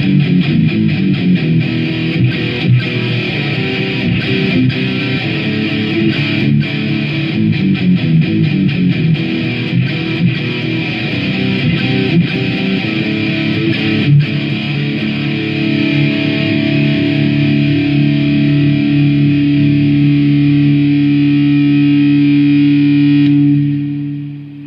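Electric guitar played through distortion: a fast riff of quickly changing notes, then a chord left ringing for about eight seconds that cuts off near the end.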